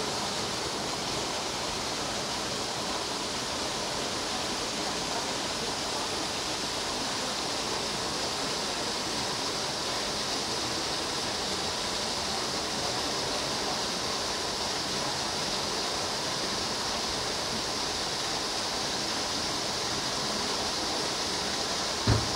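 A steady, even rushing noise that does not change, with a brief low thump at the very end.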